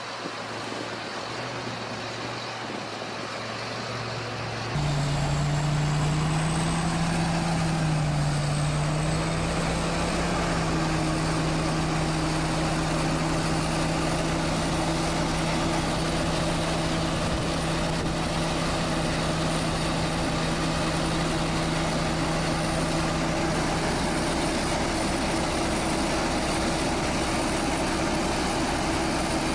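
Farm machinery's engine running steadily. It is quieter for about the first five seconds, then a cut brings in a louder, even engine hum holding one pitch.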